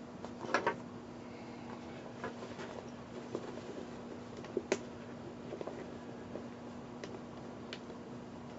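Scattered light clicks and taps of small bolts, washers and plastic parts being handled while a pannier's mounting hardware is fitted together: a short cluster about half a second in, a quick double click just before the five-second mark, and single clicks later, over a steady low hum.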